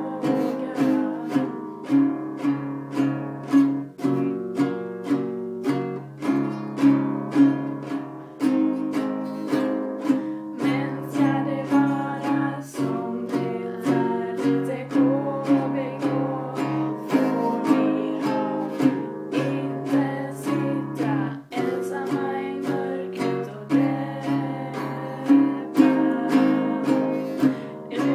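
Cataluña nylon-string classical guitar strummed in a steady rhythm, with a woman singing over it.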